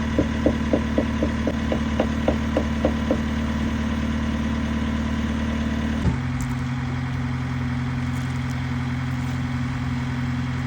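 An engine running steadily, with short rhythmic chirps about four times a second during the first three seconds. About six seconds in, the engine's note suddenly changes and settles lower.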